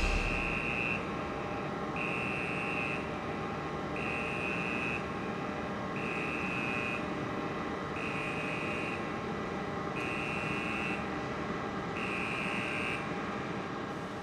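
Electronic warning beeper sounding seven times, each beep about a second long with a second's gap between, over a steady mechanical hum.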